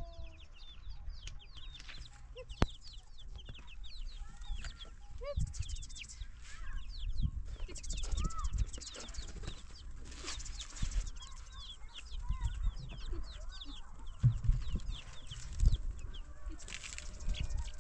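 Birds chirping in a rapid stream of short high peeps, with occasional low knocks, a sharp click a few seconds in, and stretches of rustling noise.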